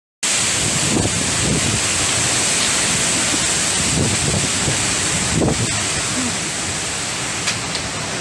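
Typhoon-force wind rushing through thrashing palm trees, with heavy wind buffeting on the microphone; the loud, steady roar starts abruptly just after the beginning and surges in gusts.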